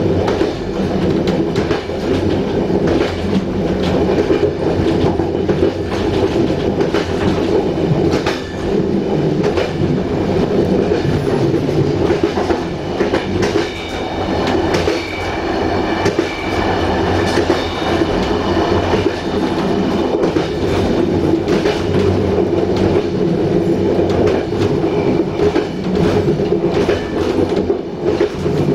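Railway passenger coach running along the track: a steady rumble from the wheels on the rails, with clicks as the wheels cross rail joints.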